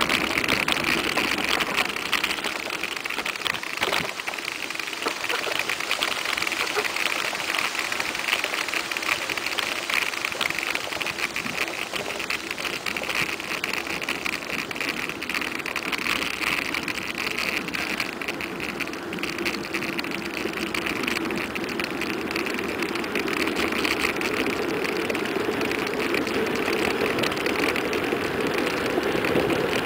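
Steady rushing noise of a mountain bike coasting fast downhill on asphalt: wind on the microphone mixed with the tyres running on the road, with a few light clicks.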